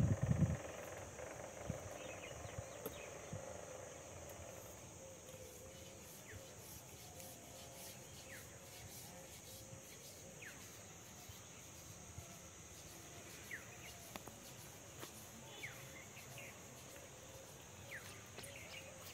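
Faint outdoor insect hum, a steady high-pitched drone, with short falling chirps every second or two and a thump at the very start.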